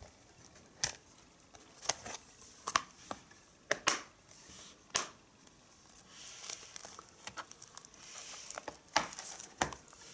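Plastic Blu-ray cases and discs being handled: scattered sharp clicks and snaps with light rustling in between.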